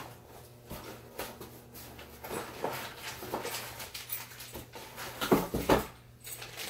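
A cardboard box and parts being handled on a desk: scattered rustles and light clicks, with two louder knocks a little past five seconds in.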